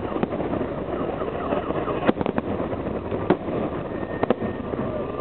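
Fireworks salute going off: sharp bangs at irregular intervals, with three close together about two seconds in and a pair near the end, over a steady background noise.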